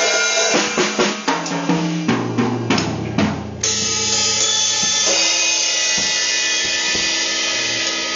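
A child beginner bashing an acoustic drum kit in an uneven, unsteady rhythm. There is a run of quick strikes on toms and snare, then from about three and a half seconds a cymbal rings out in a loud wash under a few scattered drum hits.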